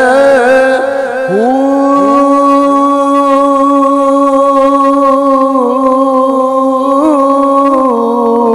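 A man's voice singing a Punjabi Sufi kalam. About a second in it glides up into one long held note, with small ornaments near the end.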